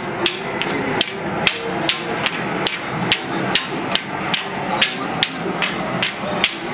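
Tinikling poles knocked on the ground and clapped together in a steady rhythm, sharp wooden clicks about two to three a second.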